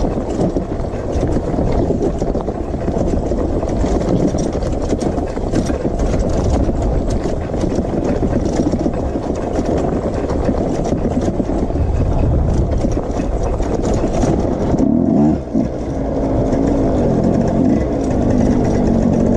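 Suzuki dirt bike engine running as the bike rides down a rough gravel trail, heard through the onboard camera microphone as a dense rumble with rattling. About 15 seconds in the sound dips briefly. After that, the engine's note rises and falls repeatedly with the throttle.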